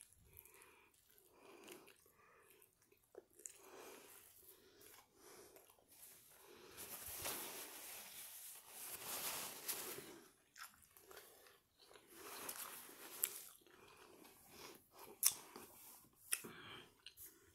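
A person chewing a bite of pizza close to the microphone, quiet and regular. Partway through there is a louder hissing rustle while a paper napkin is held to the mouth and nose, then more soft rustles and a few small clicks.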